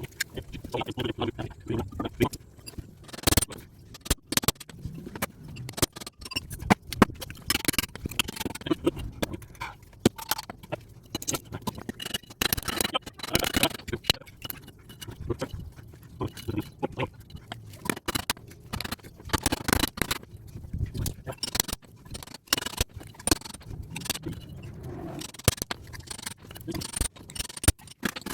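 Small transformer being taken apart by hand for scrap: a busy, irregular run of metal clicks, knocks and scraping.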